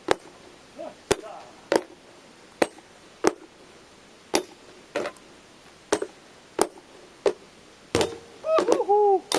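Nunchaku striking plastic bins played as drums: single sharp knocks about every two-thirds of a second. Near the end comes a faster run of hits with a short wavering pitched sound.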